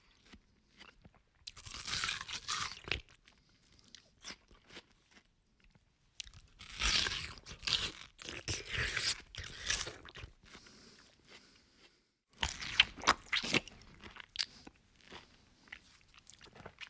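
A person eating something crunchy close to the microphone: bites and crunchy chewing in three bouts, starting about a second and a half in, about six seconds in and about twelve seconds in. Quieter gaps with small mouth clicks lie between the bouts.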